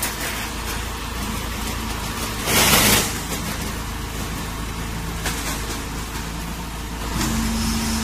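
Machinery at a horizontal straw baling press running with a steady low hum. A loud rushing hiss lasts about half a second a little before the middle, and a new steady humming tone joins about seven seconds in.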